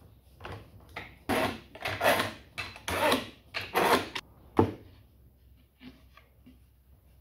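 A glued-up plywood panel and bar-clamp parts scraping and sliding against each other in a run of short strokes, then a sharp knock, as the panel is worked free of the clamps.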